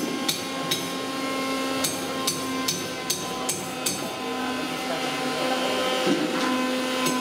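Sharp knocks in runs, about two or three a second, pausing for a couple of seconds in the middle, over a steady hum.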